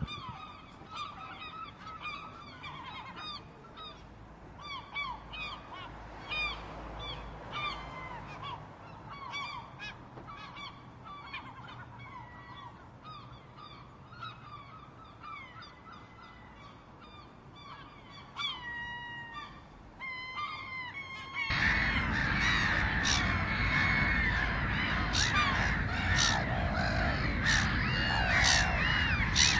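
A flock of gulls calling, with many short, repeated squawking calls over a faint background. About two-thirds of the way through it cuts abruptly to a louder, denser chorus of gull calls over a noisy wash.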